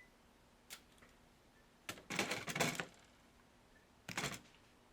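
Plastic clicks and clatter of a laptop's snap-in power-button cover panel being pried up and handled: a single click, then two short rattling bursts.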